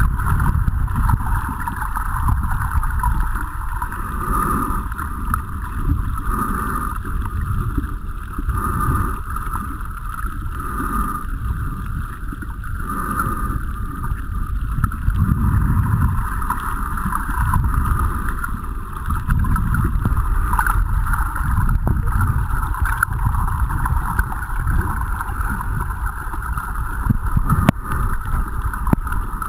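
Muffled underwater rumble and sloshing of water moving against a camera held underwater while snorkeling, with a soft hiss that swells about every two seconds.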